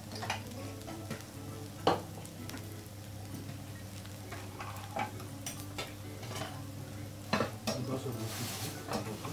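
Chopped bitter gourd frying in oil in a kadai, a light sizzle under a steady low hum, with a few sharp clicks. The loudest click comes about two seconds in.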